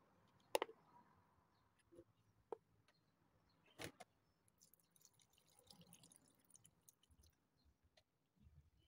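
Near silence broken by a few sharp clicks and light knocks, the loudest about half a second in and another near the four-second mark, as a wooden spoon and glass bowl touch a plastic blender jar while cooked rice is scraped in.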